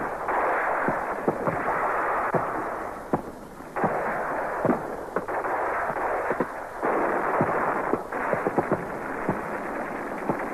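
Battle soundtrack of old war footage: scattered rifle shots over a dense, muffled din of gunfire. The din dips about three seconds in and changes abruptly a few times, as the sound is cut with the pictures.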